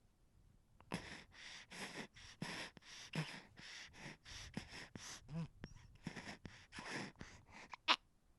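Baby whining and fussing: a quick string of short, quiet, breathy whimpers, starting about a second in.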